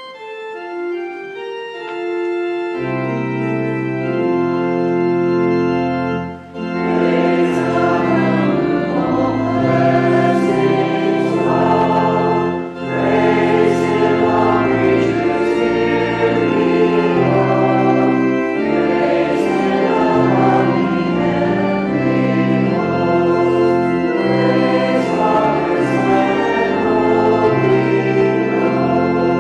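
Church organ playing a hymn: a single melody line at first, then full sustained chords from about three seconds in. Congregation voices join in singing from about seven seconds in, with short breaks between phrases.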